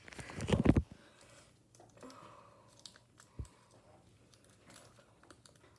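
Handling noise: a loud rubbing rustle in the first second, then faint scattered clicks and one soft thump about three and a half seconds in, as toys and wooden train track pieces are handled on a rug.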